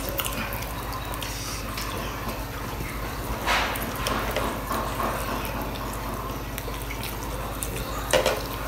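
Close-up eating sounds: Maggi instant noodles being slurped and chewed, with wet mouth clicks and smacks. A louder slurp comes about three and a half seconds in and another near the end.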